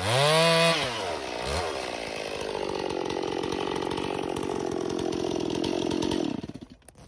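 Stihl chainsaw with a new Oregon chain running at high revs in a cut. The revs dip and rise in the first second or two, then hold at a lower, steady note as the chain binds in an upward cut, a sign of new-chain stretch leaving it loose. The engine sound falls away sharply about six and a half seconds in.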